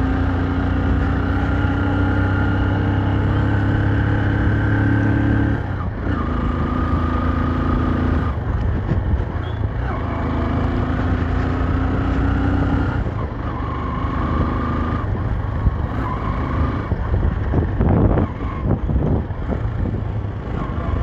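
Motorcycle engine running while riding, heard from on the bike. The engine note holds and climbs slightly for a few seconds, then breaks off and picks up again several times, over steady wind and road noise, and turns choppier near the end.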